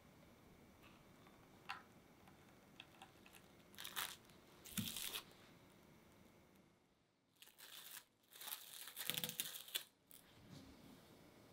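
Plastic cling wrap crinkling and tearing in short bursts as it is stretched over a bowl and peeled off again, with the loudest bursts near the end.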